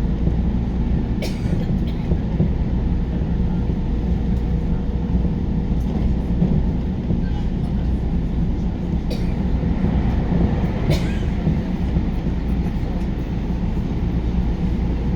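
Inside a JR New Rapid electric train car running at speed: a steady low rumble of wheels on rail and running gear with a faint steady hum, and a few sharp clicks.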